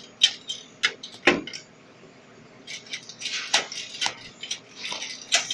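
Scattered sharp clicks and knocks, mixed with short bouts of rustling, from a hand and phone groping among plastic-wrapped snack packets inside a vending machine.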